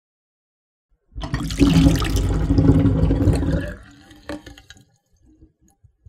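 Water draining down a drain: a loud rush of water starting about a second in, fading out after about three seconds of full flow, with a few faint last sounds near the end.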